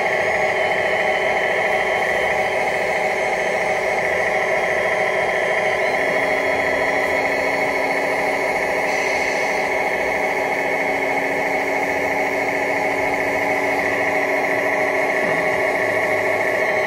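Radio-controlled Mercedes Actros II model truck giving a steady, engine-like drone from its onboard sound system. About six seconds in, a steady low hum from the hydraulic tipping pump joins it as the tipper trailer's bed rises. The hum stops near the end, with the bed fully raised.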